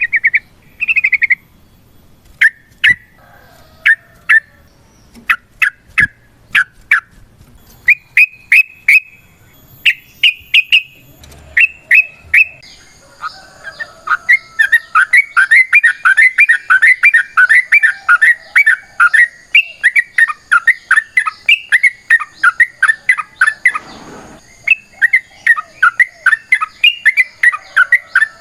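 Yellow-vented bulbul (trucukan) calling in short, separate clusters of notes, then from about halfway breaking into a long, fast, unbroken chattering song. This long run is the 'ropel panjang' that bird keepers prize.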